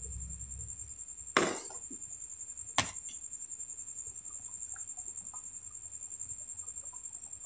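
A metal ladle stirring a thick coconut-milk stew in an aluminium pot, knocking sharply against the pot twice, about a second and a half apart.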